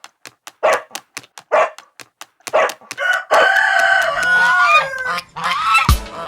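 Chickens clucking in a run of short calls, then a rooster crowing once for about two seconds, its call falling in pitch at the end, followed by a few more clucks.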